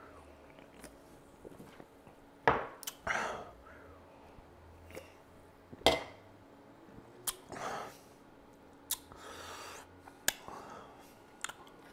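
Drinking from a can and handling it: a handful of sharp clicks and knocks several seconds apart, with soft breaths and swallows between.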